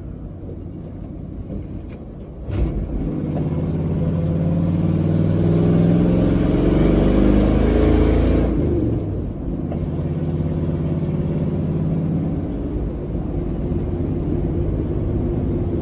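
Old highboy pickup truck's engine accelerating while merging onto a highway: the engine note climbs for several seconds, then eases off about nine seconds in and runs steady. The exhaust is loud, as on a truck that needs a muffler.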